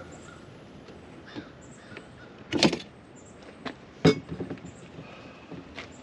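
A few sharp clunks and knocks of camp coffee gear being handled, two of them louder, about two and a half and four seconds in.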